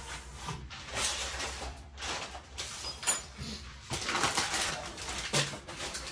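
Cardboard model-kit boxes being handled and set aside: rustling and sliding of cardboard, with a sharp click about three seconds in and a few soft knocks near the end.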